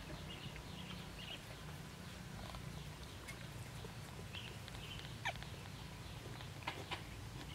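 Newborn puppies giving faint, short, high squeaks and whimpers here and there, over a low steady rumble, with a few sharp clicks in the second half.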